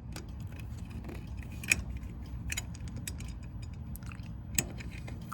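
Scattered light clicks and metallic rattles of a Sentry fire alarm pull station being reset by hand, with sharper clicks just under two seconds in and again near the end.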